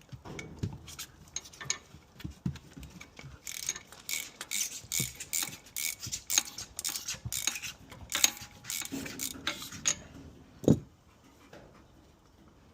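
Hand ratchet wrench clicking in quick runs as a stuck diff-cover bolt is worked out, with metal tool clinks, and one loud knock near the end.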